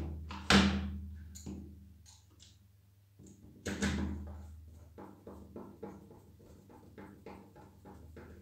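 Hollow plastic knocks and clicks from the housing of a pressure-washer spray gun being handled and pressed together. A sharp knock comes about half a second in, another near four seconds, then a run of small clicks, about three a second.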